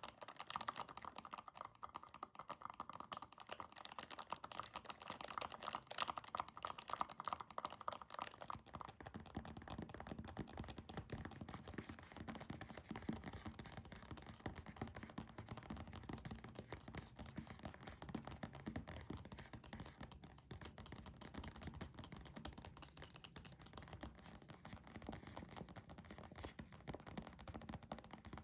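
Fingernails tapping very fast, a dense unbroken stream of small clicks. About eight seconds in, the tapping turns lower and duller.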